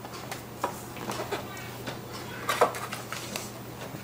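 Light handling noise: scattered small clicks and rustles as a clear plastic tape dispenser is picked up and handled, over a faint steady hum.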